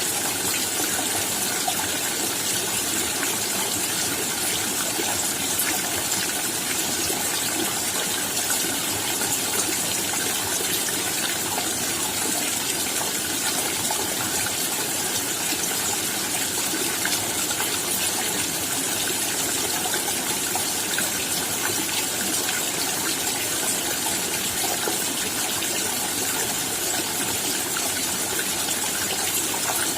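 Steady rainfall: an even hiss of many raindrops that keeps the same strength throughout.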